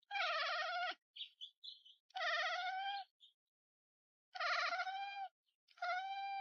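A cat meowing: four long, wavering meows about a second each, with a few brief high chirps between the first two.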